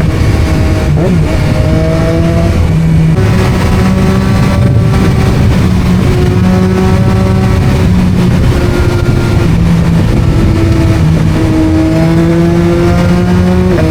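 Yamaha MT-09's three-cylinder engine running through an Akrapovič exhaust while riding, loud and steady, its pitch rising slowly and dropping back several times.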